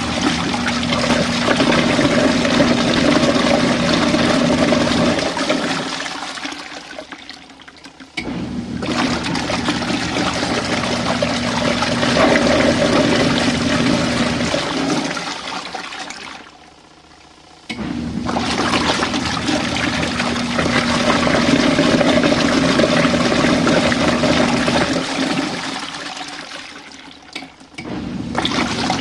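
Compact RV washing machine running a rinse: the motor hums while the water swishes and churns in runs of about eight seconds. Each run ends with the hum stopping and the swirling water dying down before the next run starts.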